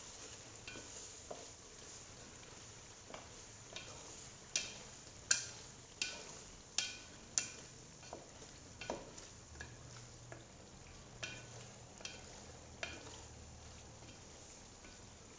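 A stirring utensil knocking and scraping against a stainless steel pot as thick chili sambal is stirred, with a steady sizzle of the paste cooking underneath. The knocks come at irregular intervals and ring briefly; they are loudest and most frequent in the middle.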